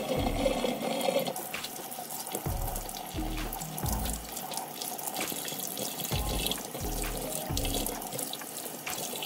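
A kitchen faucet runs into a stainless steel sink, splashing as hands are rubbed and rinsed under the stream. Background music with a deep bass beat plays over it.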